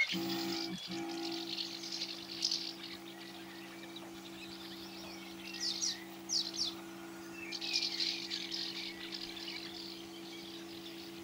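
Small electric pump of a battery knapsack sprayer running with a steady, even hum while a fine mist sprays from the lance. Birds chirp over it several times.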